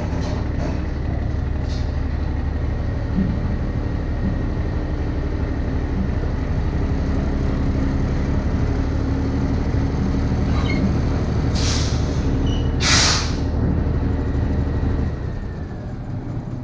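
Truck engine running steadily as it backs a trailer in. Two short air-brake hisses come about 12 and 13 seconds in, and the engine stops near the end.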